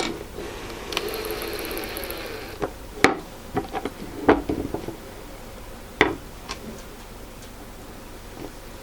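Knocks and clicks of a wooden stool's parts and tools being handled while clips are screwed on, with a small powered screwdriver running briefly for about a second and a half near the start.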